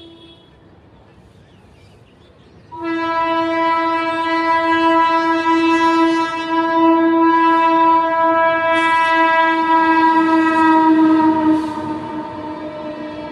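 Locomotive horn of an Indian Railways superfast express running through a station at speed: a short horn tail fades out at the start, then a second long blast begins abruptly a few seconds in and is held for about nine seconds. Near the end its pitch drops slightly and it carries on fainter over the rumble and clatter of the passing coaches.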